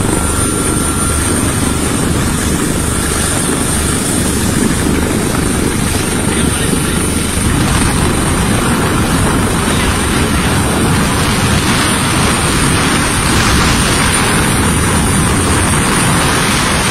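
Helicopter rotor and engine noise heard from aboard, loud and steady, with a thin high whine over it; it turns hissier about halfway through.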